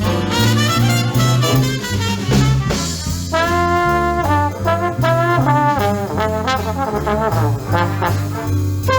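Live swing big band playing, with brass to the fore and trombones prominent over a steady walking bass line. The brass holds a long chord about three seconds in.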